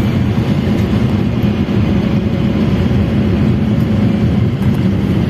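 Steady low rumble of a moving vehicle: road and wind noise, even throughout with no change in pace.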